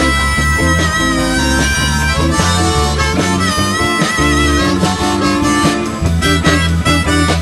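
A live blues-rock band of drums, bass, electric guitar and keyboard plays an instrumental passage with no vocals. A lead line of long, bending, wavering notes sits over a steady beat and bass.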